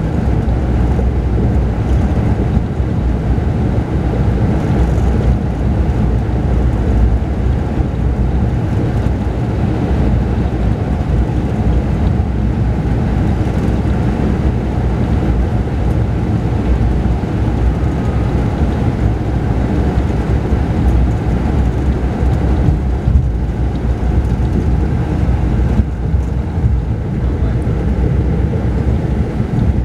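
Mercedes-Benz O-500RSD coach's diesel engine running steadily under way, with road and tyre rumble, heard from inside the upper-deck passenger cabin.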